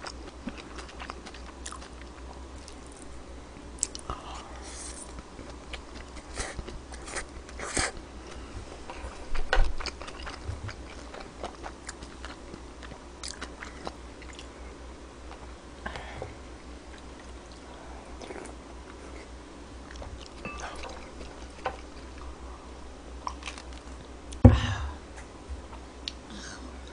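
A person eating close to a microphone: chewing and biting, with scattered light clicks. One sharp loud thump comes about two and a half seconds before the end.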